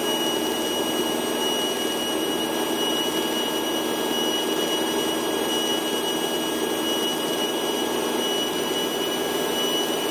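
Light airplane's engine and propeller droning steadily in flight, with rushing air noise and a thin, steady high whine on top.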